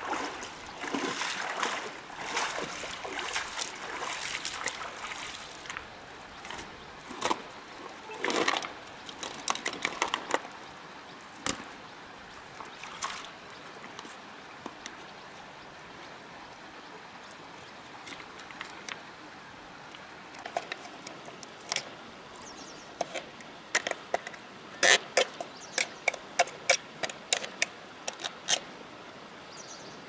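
Splashing steps wading through shallow river water for about the first ten seconds. After that comes a steady hiss of running water with scattered sharp clicks and knocks of a knife and freshwater mussel shells as the mussels are pried open. The clicks come thick and fast over the last several seconds.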